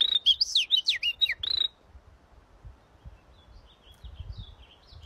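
A bird chirping in a quick run of rising and falling notes for about the first second and a half, then only faint, scattered chirps toward the end.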